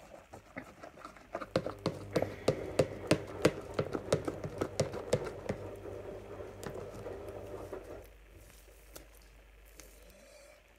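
Slime being worked in a plastic tub: a run of quick sticky clicks and taps, about three a second, that stops about eight seconds in.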